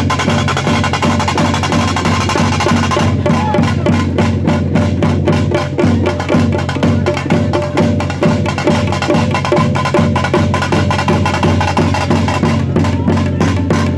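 Loud percussion-driven music: fast, dense drumming over a steady deep bass.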